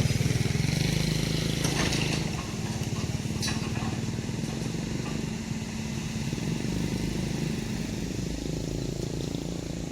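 A vehicle engine running steadily at low speed along a rough road, a little quieter after about two seconds.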